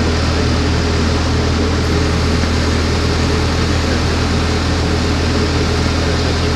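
JCB 541-70 Agri telehandler's diesel engine running steadily, a constant low hum with no change in speed.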